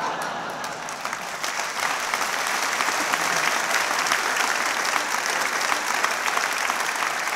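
Theatre audience applauding after a punchline, the clapping building over the first two seconds and then holding steady.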